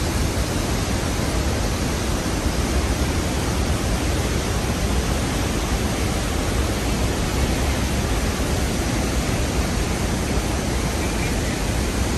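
The Rhine Falls pouring at high flow, heard up close: a loud, steady, unbroken rush of white water with a deep rumble underneath.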